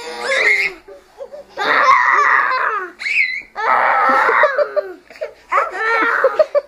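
Children laughing and squealing in about five loud bursts, with sharp pitch glides, as they play rough.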